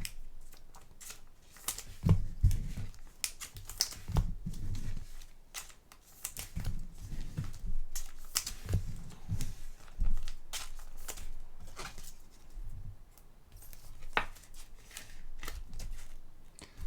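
Trading cards being handled: cards sliding and clicking against each other, with light crinkling and occasional soft thumps on the table.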